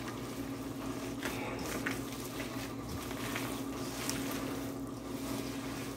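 Gloved hands mixing ground meat with breadcrumbs for a meatloaf: soft, wet squishing, over a steady low hum.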